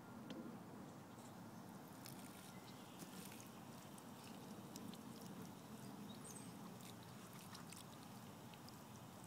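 Near silence: a faint low background hum with scattered faint ticks.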